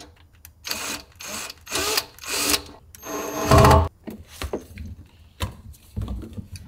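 A few short bursts from a cordless drill-driver, then a loud thump about three and a half seconds in and light knocks and scrapes as a garbage disposal unit is pushed up and twisted onto its sink mounting ring.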